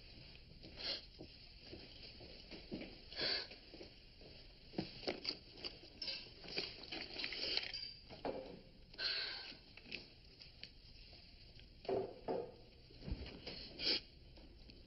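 A person sniffing and breathing shakily, in short irregular bursts every second or two, as if upset or on the verge of tears.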